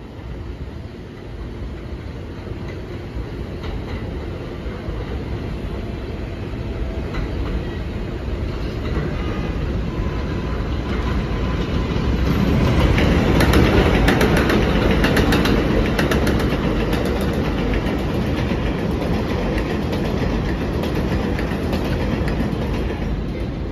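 R188 subway train pulling into an elevated station: a rumble that grows louder as it approaches, peaking about halfway through with rapid wheel clacks over the rail joints as the cars pass, then easing as it slows to a stop.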